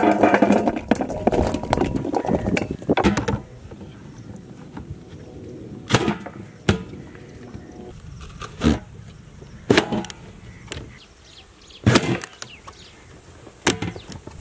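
Cut potato sticks clattering into a stainless steel bowl with some metallic ringing, then several sharp separate clacks from a plastic press-down vegetable chopper as potatoes are set on its blade grid and its lid is pushed down.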